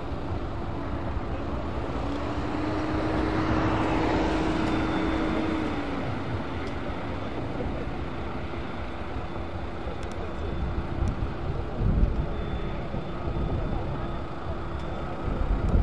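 Twin turboprop engines of a C-27J Spartan military transport in a display pass: a steady propeller drone with a held hum, swelling louder about four seconds in as the aircraft passes, then easing off.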